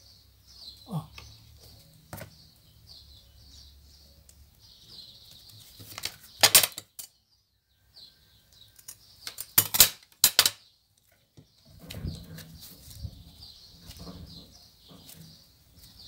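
Scissors cutting gold ric-rac trim: a few loud, crisp snips in two clusters about midway, between quieter rustling as the hands handle the trim and the foam disc.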